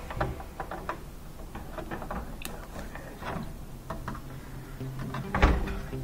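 Clicks and knocks of the Samsung dryer's plastic and sheet-metal panels and wiring being handled during reassembly, with one louder thump about five and a half seconds in as a panel is pushed into place.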